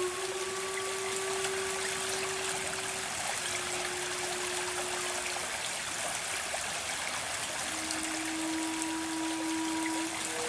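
Steady rushing of a stream or waterfall, with soft background music of long held notes changing every few seconds.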